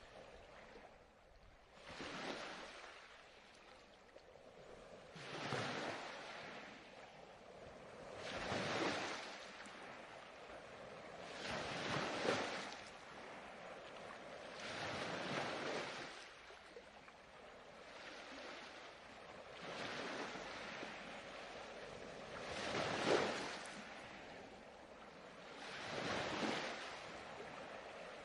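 Ocean surf: waves breaking and washing in, a noisy rush that swells and falls away about every three seconds.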